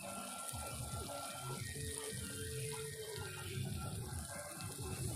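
Small fish frying in hot oil in a kadhai: a steady sizzle.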